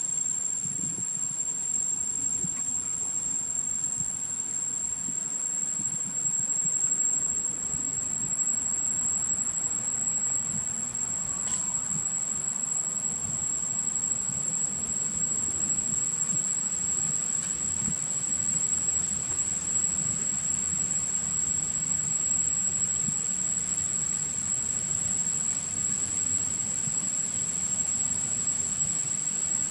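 A steady, high-pitched insect drone holding one unbroken tone, with a low rumble underneath.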